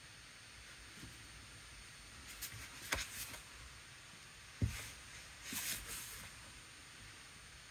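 Faint handling noises of a paper card and a plastic water brush pen on a desk: short rustles and a click about three seconds in, a dull knock on the tabletop a second and a half later, then more rustling.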